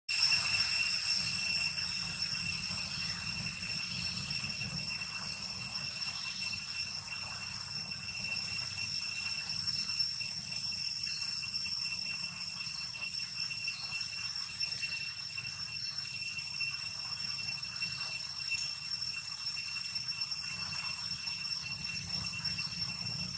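Steady, unbroken high-pitched insect buzz with a ringing edge, typical of tropical forest insects, over a low background rumble.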